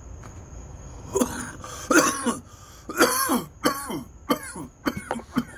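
A man coughing hard, a run of about seven coughs starting about a second in, the later ones shorter: a coughing fit from cannabis smoke expanding in his lungs after a hit.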